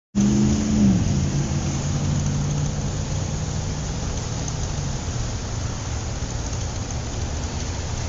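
City street traffic, with a motor vehicle's engine close by whose note drops in pitch about a second in, then settles into a steady rumble of traffic.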